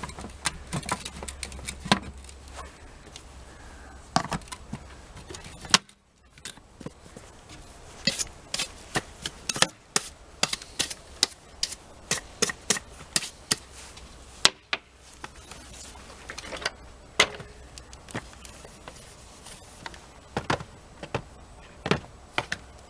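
Irregular sharp clicks and knocks of plastic vacuum-cleaner parts being handled and fitted back together, with a short break about six seconds in.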